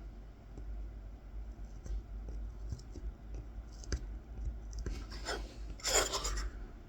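Kolrosing knife scoring fine lines into a wooden coffee scoop: faint small scratches and clicks of the blade in the wood. Near the end there is a louder, brief brushing rush.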